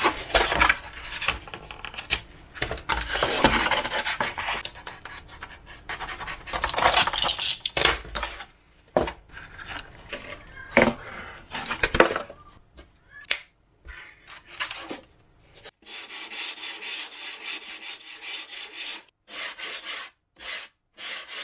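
Depron foam wing pieces being handled, rubbed and scraped on a wooden table: irregular rubbing and scratching strokes, turning to a steadier run of rubbing in the last few seconds.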